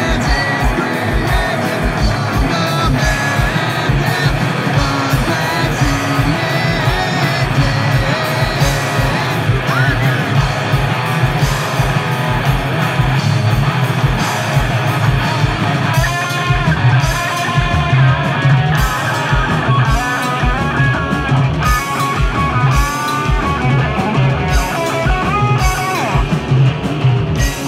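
Live rock band playing: two distorted electric guitars through Marshall amplifiers over a drum kit, with a steady kick-drum beat.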